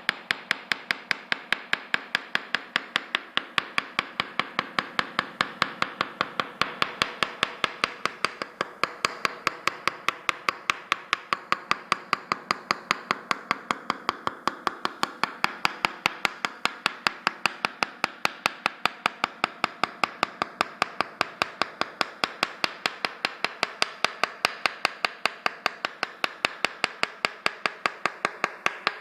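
Tok sen massage: a wooden mallet tapping a wooden wedge held against the body, in an even run of sharp knocks at about four a second.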